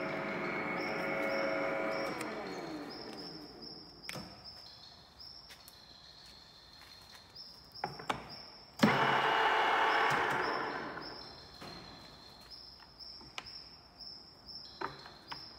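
Donau DR 28 Z radial drilling machine's spindle gearbox running steadily, then switched off around two seconds in and winding down with a falling pitch. Clicks follow as the speed selector dial is turned, and about nine seconds in the spindle drive starts again suddenly, runs for about a second and a half and winds down.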